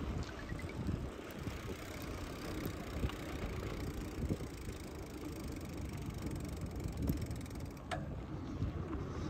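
Wind rumbling on the microphone during a bicycle ride, a steady low buffeting. A single sharp click about eight seconds in.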